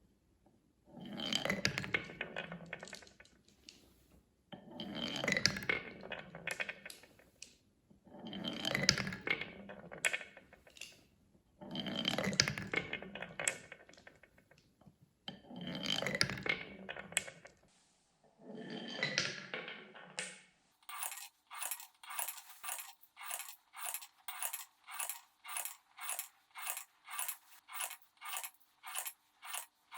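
Marbles rolling and clattering down a wooden marble run track, in six runs of about three seconds each. From about two-thirds of the way in, the clatter gives way to an even, clipped clicking at about two beats a second.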